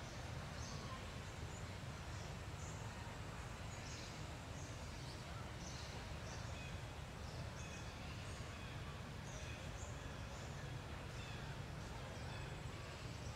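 Forest ambience: short high bird chirps, about one or two a second, over a steady low rumble, with a thin high insect whine coming in near the end.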